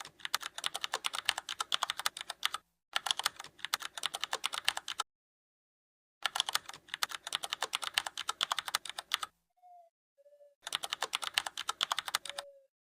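Ratchet wrench clicking in four quick runs of rapid clicks as bolts are loosened and spun out, with short pauses between runs and a couple of brief faint tones before the last one.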